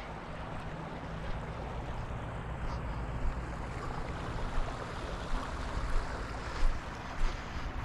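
Small seasonal stream flowing steadily, with wind rumbling on the microphone and a few short louder bumps in the second half.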